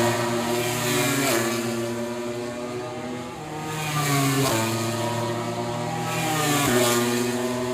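MotoGP racing motorcycles passing at full throttle one after another, each high engine note dropping sharply in pitch as a bike goes by: about a second in, midway and near the end.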